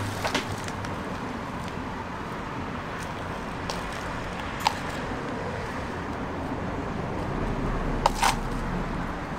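Steady background noise of a street food stall, with a few sharp taps, the loudest a pair about eight seconds in.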